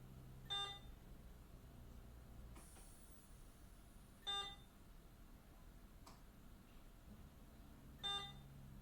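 A hospital bedside medical device sounding a single short, high alert beep every four seconds or so, three times, over the low hum of room equipment.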